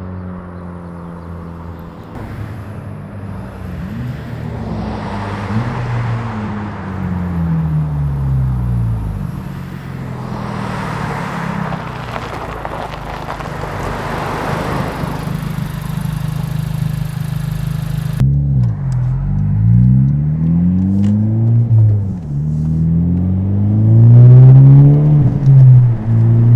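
Honda Civic Type R FK8's turbocharged 2.0-litre four-cylinder through a Greddy DDR resonated exhaust, heard from outside as the car accelerates past, the exhaust note swelling with a rushing roar. After an abrupt cut about 18 seconds in, the same engine is heard accelerating, its pitch rising and falling with each gear change and getting louder near the end.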